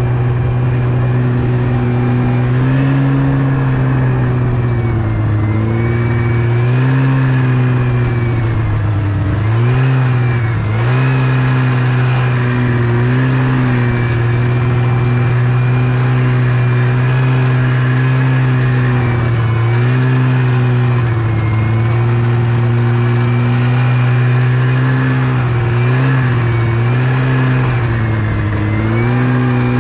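Yamaha Venture snowmobile engine running at a steady speed during a ride. Its pitch dips briefly and rises again several times.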